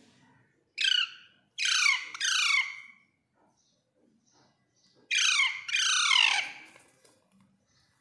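Alexandrine parakeets giving loud, harsh squawks, each falling in pitch: three in quick succession about a second in, then two more about five seconds in. The birds are agitated and squabbling with each other.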